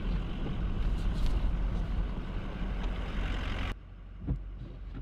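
Pickup truck running on a snowy road, heard inside the cab as a steady low engine and road rumble. It cuts off suddenly about three and a half seconds in, leaving the quieter hum of the truck idling and a single click.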